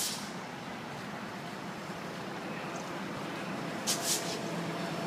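Light-rail train pulling slowly into a station close by: a steady rumble with a low hum, and two short high hisses about four seconds in.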